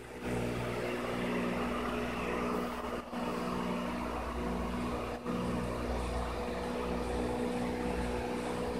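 Steady machine hum, a low drone with a higher whir over it, which drops out for a moment twice.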